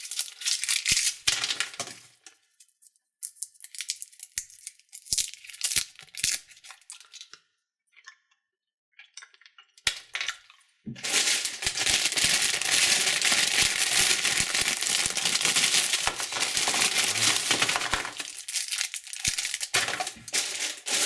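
Candy wrappers crinkling and tearing as sweets are handled and unwrapped. Short crackly bouts with pauses come first, then a long, dense stretch of crinkling from about halfway in.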